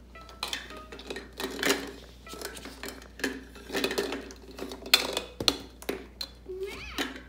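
Hard plastic toy cups and pieces knocking and clattering against a plastic baby activity table, in a run of irregular knocks, the sharpest about five seconds in.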